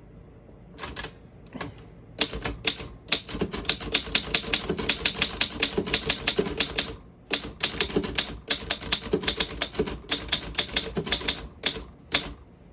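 Underwood Standard manual desktop typewriter being typed on: typebars striking the platen in a fast run of keystrokes, about five a second. A few lone strikes come first, there is a short pause about seven seconds in, and a few last strikes come near the end.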